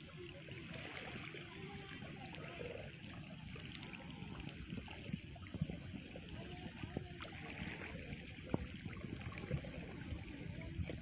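Shallow seawater trickling and sloshing among rocks on a tidal flat, with scattered small clicks and splashes.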